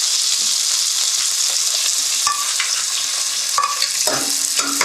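Black peppercorns, ginger slices and fresh mint sizzling in hot ghee in a pan, a steady frying hiss. A few short clicks come in the second half.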